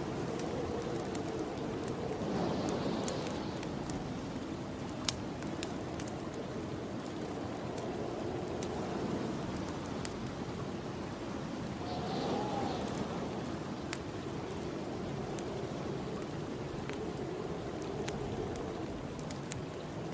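Snowstorm wind blowing steadily outside, swelling into gusts twice, over a wood fire crackling in a fireplace with scattered sharp pops.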